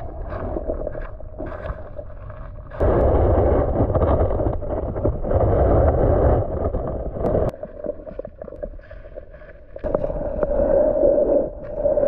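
Stream water rushing and gurgling close by. It gets much louder twice, starting and stopping abruptly, about three seconds in and again near the end.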